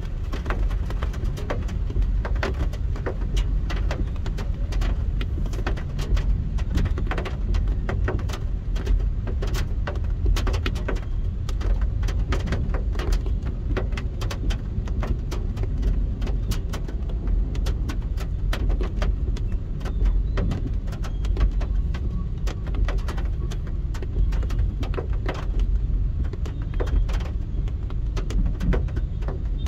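Steady low rumble of a car in slow traffic, heard from inside the cabin, with raindrops tapping irregularly and densely on the roof and windscreen.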